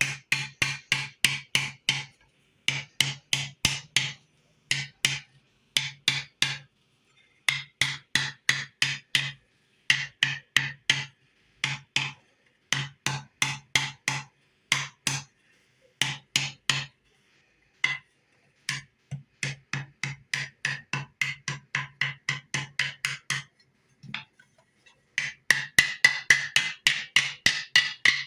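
Hammer blows doming a silver buckle, struck in quick runs of about four or five a second with short pauses between runs.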